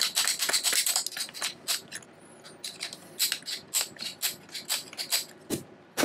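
Steel screwdriver bit in a cordless drill being worked through the demagnetizing slot of a magnetizer-demagnetizer block, metal clicking and scraping against the block. A quick run of clicks gives way to slower single clicks, with a dull knock near the end.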